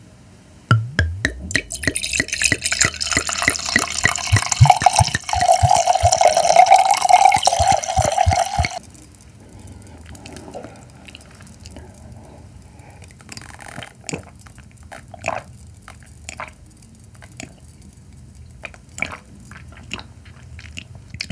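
White wine poured from a bottle into a stemmed wine glass, glugging at first, then running in a steady stream for about eight seconds and stopping sharply. After that come faint small sounds of sipping from the glass.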